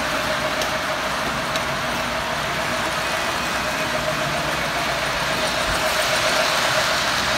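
Three-rail model trains running on their metal track: a steady whir of the electric motors and the wheels rolling on the rails, with a constant motor whine and a few faint track clicks.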